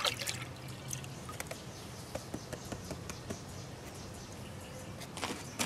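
Water splashing and trickling as a plastic gold pan is dipped and tipped in a tub of muddy water, washing the light material off the sample. One splash comes right at the start and another near the end, with faint drips and trickles between.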